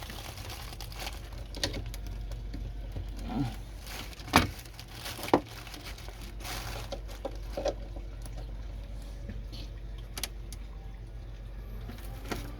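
Scattered clicks and knocks of hands handling small plastic and metal objects, two sharper knocks about four and five seconds in, over a steady low hum.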